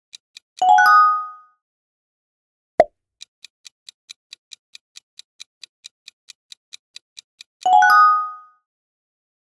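Quiz-game sound effects: a countdown timer ticking about four times a second, a bright multi-note chime about a second in and again near the end as the correct answer is revealed, and a short pop about three seconds in as the next question comes up.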